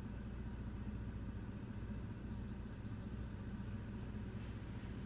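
Toyota 4Runner engine running steadily at low revs, a low, even hum heard from inside the cabin.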